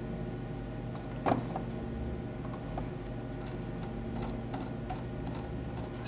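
Computer mouse clicking a few times, one louder click about a second in, over a low steady electrical hum.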